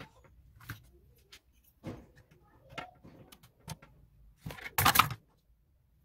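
Scattered clicks and knocks of plastic parts being handled on an opened electric fan heater, with a louder clatter lasting under a second about four and a half seconds in.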